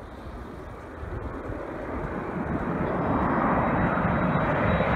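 Twin-engine Boeing 767-300ER jet airliner on final approach, its engine noise rising steadily as it nears overhead, with a thin high whine coming up toward the end.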